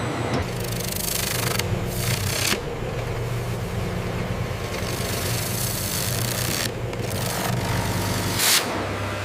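Plywood mill machinery running: a steady low mechanical hum under a hiss, which changes abruptly a few times.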